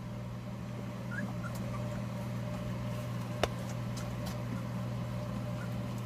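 Young Jindo-cross puppies give a few faint whimpers and squeaks while they crawl and nurse, over a steady low hum. A single sharp click comes about three and a half seconds in.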